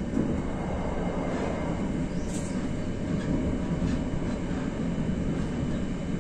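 Steady rumble of an electric commuter train running along the line, heard from inside the carriage, with a faint steady whine above the wheel-and-rail noise.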